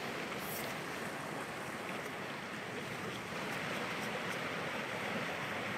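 Steady, even noise of sea surf and wind.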